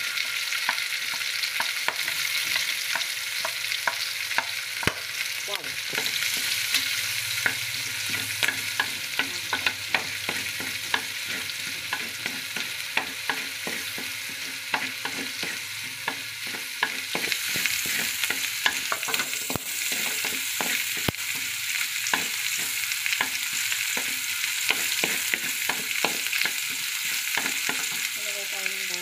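Pork pieces and chopped garlic sizzling in hot fat in a pan, a steady hiss. A wooden spatula stirs and scrapes through them, giving many short clicks and taps against the pan.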